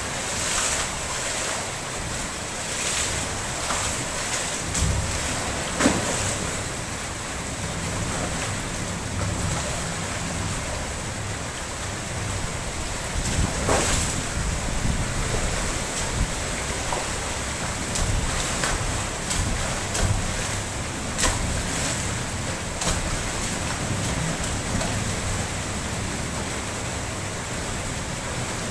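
Steady rain hiss over shallow water pooled on a flat rooftop, with wind rumbling on the microphone. Repeated sharp splashes as a person runs, kicks and belly-flops through the water, the loudest about six seconds in and again around fourteen seconds.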